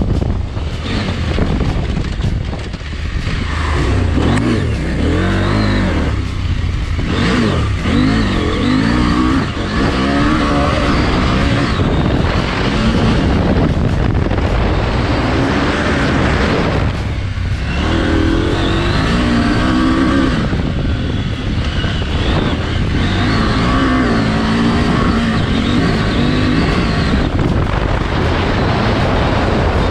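Husqvarna adventure motorcycle engine being ridden off-road, the revs climbing and dropping again and again, with wind noise on the microphone.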